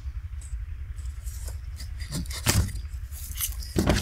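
A box and its packaging being handled and opened, with small clicks and two sharp knocks, about two and a half and four seconds in, over a steady low rumble.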